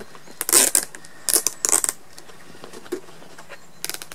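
Plastic cable ties being zipped tight around a rolled-up rubber suspension airbag: short bursts of rapid ratcheting clicks, four pulls in all, the loudest about half a second in, two more close together in the middle, and one near the end.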